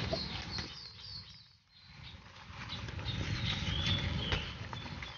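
Leaves rustling and stems snapping as leaves are plucked by hand from a leafy vine, over a low uneven rumble. A few faint high chirps come through about three and a half to four seconds in.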